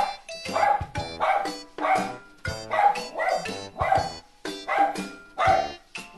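Small wiry-coated dog barking repeatedly, about two barks a second: alarm barking at a stranger passing the house. Background music plays underneath.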